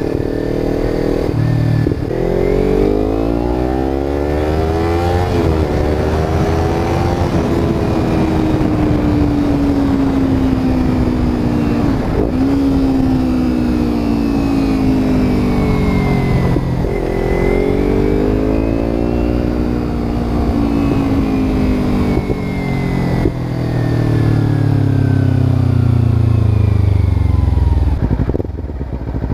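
Kawasaki Ninja 300's parallel-twin engine through an Akrapovic slip-on exhaust with its noise killer (baffle) removed, loud, revving up and down, its pitch climbing and then falling, with several sudden drops as it changes speed.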